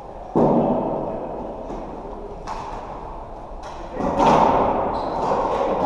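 Sounds of floorball play in a sports hall. There are two loud thuds, one just after the start and one about four seconds in, each dying away over about a second. Sharp clicks from the sticks and ball fall between them.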